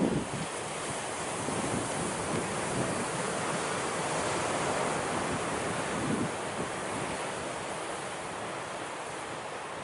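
Surf from waves breaking on a rocky shore: a steady rushing wash that swells towards the middle and then eases, with wind now and then buffeting the microphone.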